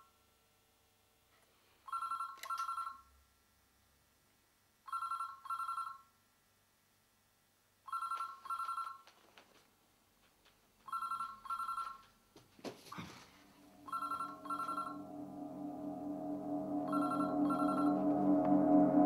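Telephone ringing in a double-ring pattern, two short rings every three seconds, six times over. A brief falling whoosh comes about two-thirds of the way through, and from then a low droning music swell rises underneath and grows steadily louder.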